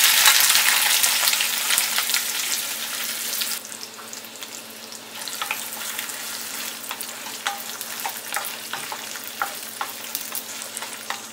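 Chopped onion dropped into hot peanut oil in a stainless steel pan, setting off a loud sizzle that falls away sharply after about three and a half seconds. A quieter sizzle follows, with clicks and scrapes as a wooden spatula stirs the onion around the pan.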